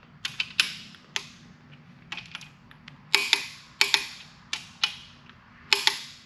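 Click-type torque wrench breaking over at its 90 ft-lb setting on engine main cap bolts: a run of sharp clicks, several coming in close pairs as each bolt is double-clicked.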